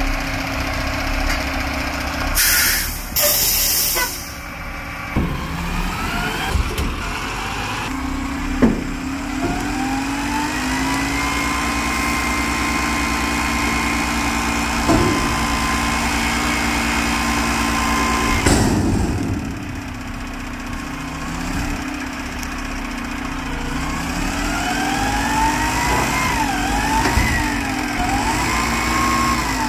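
Front-loader garbage truck's diesel engine running, with a hydraulic whine that climbs and holds while the forks work a dumpster, then rises and falls several times near the end as the arms begin lifting it. A loud air hiss comes about two and a half seconds in, and there are a few sharp metal knocks.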